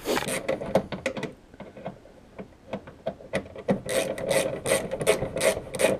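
Hand ratchet wrench tightening bumper bolts: short rasping ratchet strokes, a quick run at first, a lull from about one to three seconds in, then a steady rhythm of two or three strokes a second.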